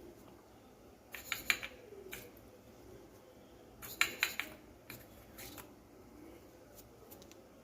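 Light clicks and clinks of kitchen utensils against dishes, in three short clusters over faint room hiss.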